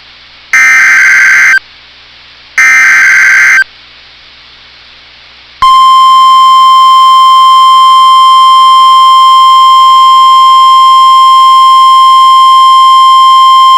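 Emergency Alert System activation on NOAA Weather Radio. First come the last two of the three harsh digital SAME header bursts, each about a second long with a second between them. After a two-second gap, the steady 1050 Hz warning alarm tone starts about five and a half seconds in and holds. It signals that a severe thunderstorm warning is being issued.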